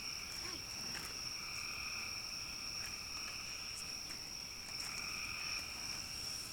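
Steady chorus of frogs and insects calling, a continuous high-pitched trilling drone with a faint click or two.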